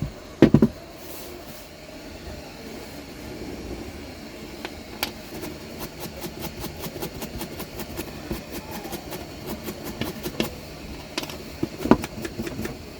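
Small repair tools knocking and clicking against a phone board and workbench: a couple of loud knocks about half a second in, then a run of quick light clicks, over a low steady hum.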